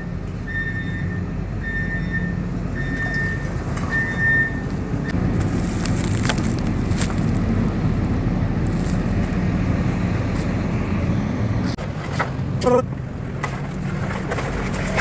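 A vehicle engine runs steadily on heavy equipment. For the first few seconds a high warning beep sounds about five times.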